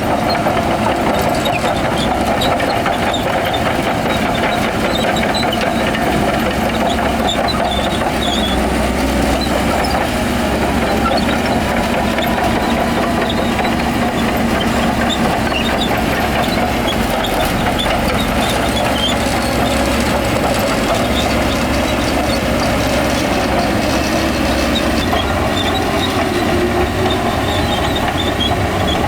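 Diesel engine of heavy earth-moving machinery running steadily, with scattered faint high squeaks over it.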